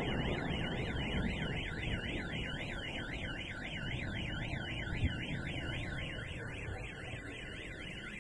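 Electronic alarm siren warbling rapidly up and down, roughly two and a half sweeps a second, sounding steadily over a low rumble of background noise.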